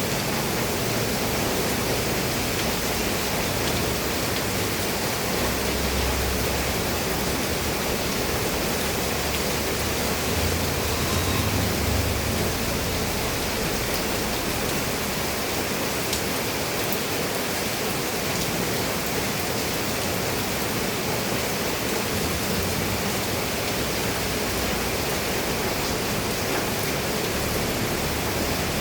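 Steady rain falling on a roof, an even unbroken hiss, with a faint low rumble swelling about six seconds in and again around eleven seconds in.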